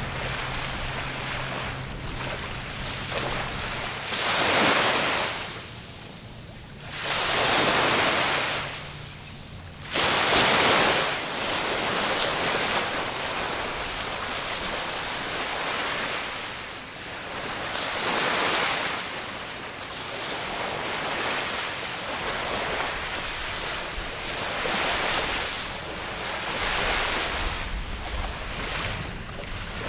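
Waves washing and splashing in surges every few seconds, the strongest in the first ten seconds, with wind on the microphone. A passing boat's engine hums low and steady for the first few seconds, then fades out.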